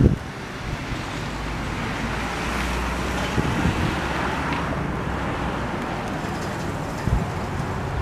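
Street traffic with a car passing through the middle, over low wind rumble on the microphone and a few brief thumps.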